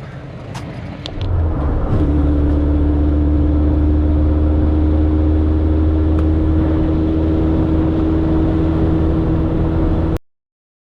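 Suzuki Samurai running under way, heard from inside the cab: the engine note steps up about a second in, then holds a steady drone with a steady whine over it, cutting off abruptly shortly before the end.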